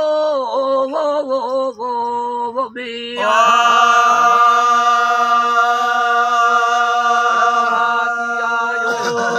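Unaccompanied male singing of a Sindhi raag kafi: short phrases sliding up and down, then one long held note from about three seconds in until near the end.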